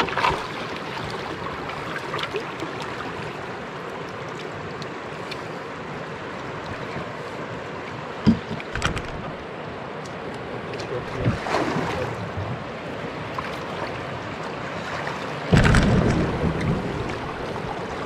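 Steady rush of river water running past a canoe, with a few louder bursts, the strongest about fifteen seconds in.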